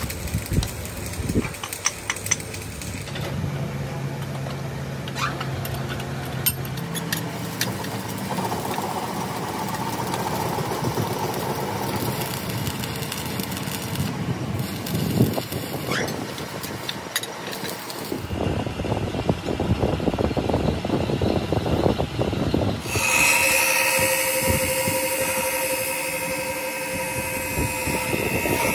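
Metalworking on steel: the sputtering crackle of stick arc welding and the steady hiss of a gas cutting torch, changing several times between tasks. Near the end a steady whine with several pitches takes over.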